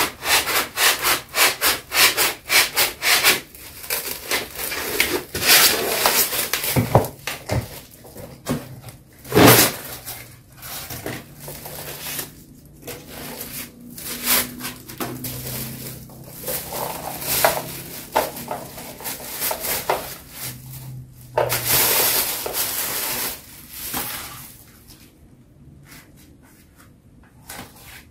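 Unpacking an impulse sealer: cardboard flaps and box sides scraping and rubbing as the sealer is slid out, with plastic wrapping rustling, in quick irregular bursts. It dies down to light handling in the last few seconds.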